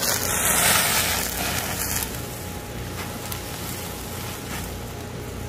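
Gizzard shad sizzling on a gas grill as the double wire grilling rack is turned over: a loud hiss for about the first two seconds, settling to a steadier sizzle over a low steady hum.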